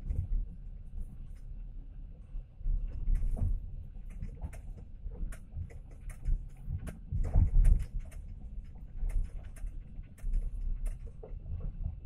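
Inside a moving passenger train carriage: a steady low rumble from the running gear, with frequent irregular clicks and rattles from the carriage, swelling louder about seven seconds in.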